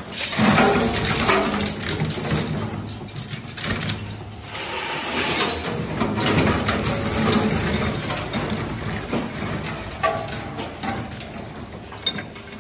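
Twin-shaft scrap metal shredder running, its interlocking hooked cutter discs grinding and chopping lathe turnings and metal wire strips with a dense, continuous rattling and crunching. The clatter is heaviest about half a second in and eases off toward the end.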